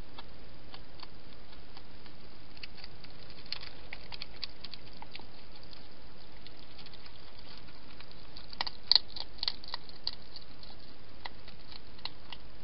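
Wild European hedgehog feeding at a shallow dish: scattered small crisp clicks and crunches, with a louder flurry about nine seconds in, over a steady hiss.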